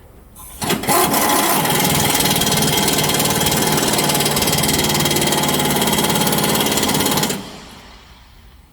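Impact wrench hammering continuously as it runs down the top rear-shock mounting bolt, starting just under a second in and stopping about a second before the end.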